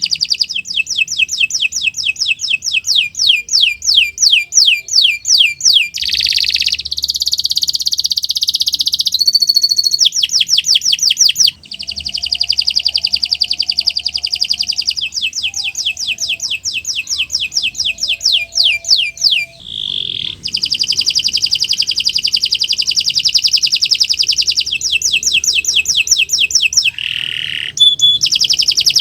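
Domestic canary in full song, a long continuous string of rapid high-pitched trills and rolls, each run made of quickly repeated falling notes. The song breaks briefly about a third of the way in and again about two-thirds through.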